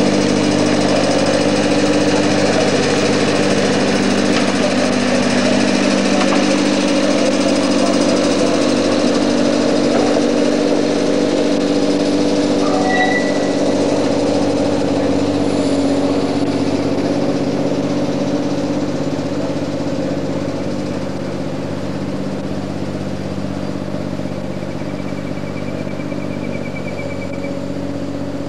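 A tourist tram's engine running steadily with a constant pitch, slowly fading over the second half.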